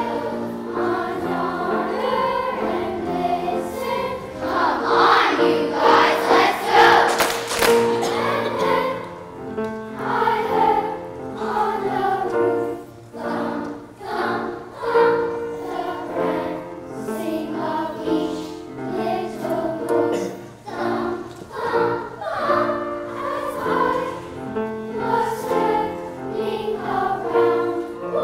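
A children's choir singing a song together, swelling louder for a few seconds about five seconds in.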